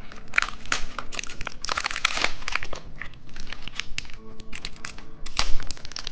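Plastic candy packaging crinkling and tearing as it is handled and opened: a dense, irregular run of crackles, with a louder one about five and a half seconds in. Faint background music underneath.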